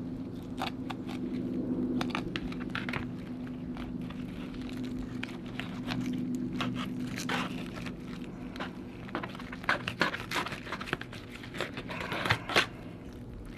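Fillet knife cutting along a crappie's body on a plastic tray: irregular crackling, crunching and scraping clicks, thicker and louder near the end. A low steady hum sits underneath through the first half.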